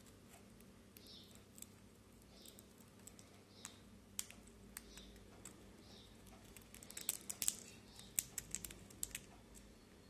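Quaker parrot (monk parakeet) cracking and nibbling a seed shell held in its foot: scattered sharp beak clicks, coming thicker and louder in a quick run about seven to nine seconds in.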